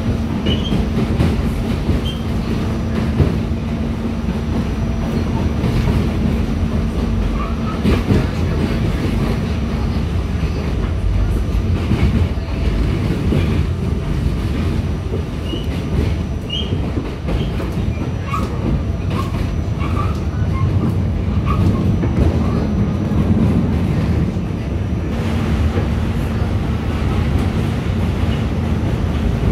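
Inside a moving R46 subway car: the steady rumble of wheels on rail with clickety-clack over rail joints. A steady hum drops out about a third of the way in and returns near the end, and a few short high squeals from the wheels come through in the middle.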